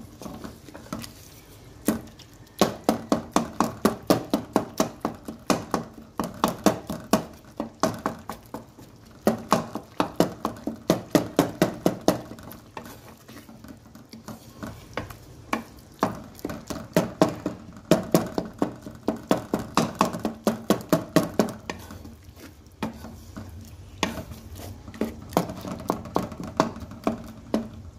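Wooden spatula stirring and scraping minced beef in a metal pot as it is fried in ghee, knocking against the pot about four times a second with faint metallic ringing. The strokes come in runs of a few seconds with short pauses between them.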